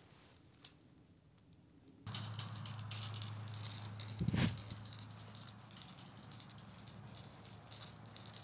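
Light clicking and rattling of steel wire being wrapped around a metal fence T-post by gloved hands. About two seconds in a steady low hum begins, and one louder knock comes near the middle.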